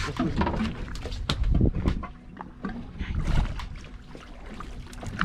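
Water sloshing against a small boat's hull, with gusts of wind on the microphone that swell loudest about one and a half and three and a half seconds in, and a few sharp clicks.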